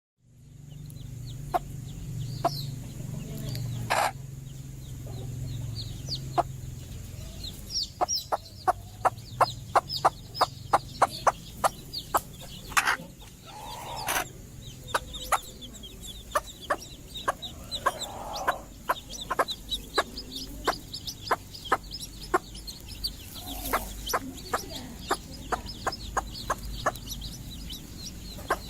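Domestic hens clucking. From about eight seconds in, a fast, uneven run of sharp clicks joins the clucking, several a second.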